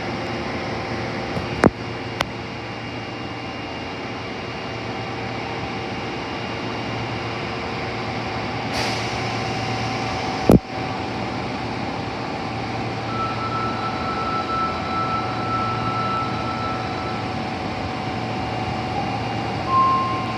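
Tanimachi Line 22 series subway car with a steady hum of its air conditioning and equipment. A short hiss of air comes about nine seconds in, and a sharp knock about a second and a half later.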